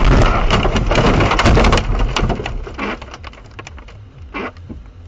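Car ploughing off the road into deep snow, with snow and debris pelting the body and windscreen in a dense rattle of hits. It is loudest for the first two seconds, then dies away to scattered hits.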